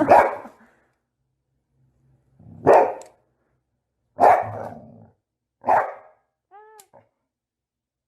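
A dog barking four times, about a second and a half apart, followed by a few faint short high-pitched cries.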